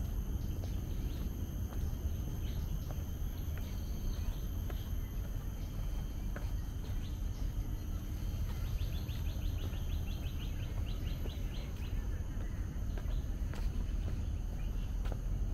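Outdoor ambience of a tropical hillside park: a steady low rumble under a constant high insect drone. About two seconds of a rapid trill of high chirps come midway.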